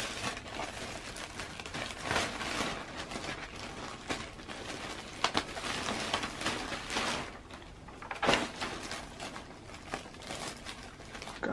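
Plastic bags crinkling and rustling as they are handled and pulled open, with many small crackles and a few louder rustles.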